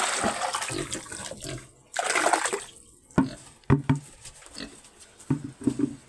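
Liquid pig swill pouring from a plastic bucket and splashing into a stone trough, with a second short pour about two seconds in. From about three seconds on, a pig grunts in short bursts as it eats at the trough.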